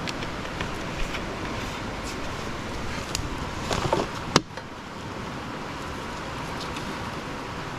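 Steady background rumble with close handling noise of a plastic bottle and bag. A brief rustle comes a little before halfway, ending in one sharp click.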